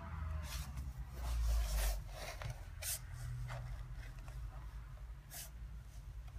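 Husky shuffling on a laminate floor and pushing at the gap under a cabinet: a handful of short scrapes and rustles, with a low rumble about a second in that is the loudest part.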